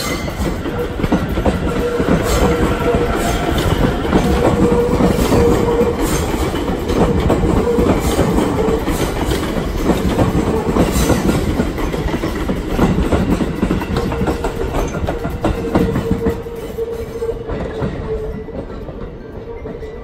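E257 series 2500 electric multiple unit running past along the platform: a steady rumble with its wheels clacking over the rail joints. The noise fades over the last few seconds as the train moves away.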